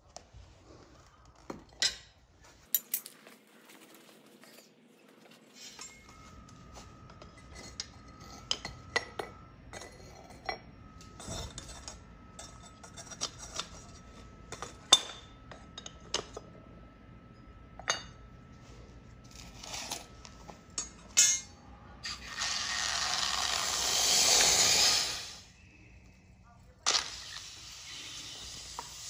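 Scattered sharp metal clinks and taps as a freshly cast ingot is handled with steel tongs. About two-thirds of the way through comes a loud hiss and sizzle lasting about three seconds as the red-hot copper ingot is quenched in a pot of ice. The hiss starts again near the end.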